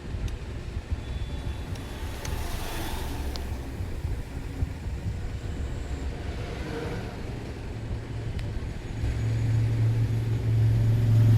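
A steady low rumble with a few faint clicks. About nine seconds in, a louder, steady low hum sets in.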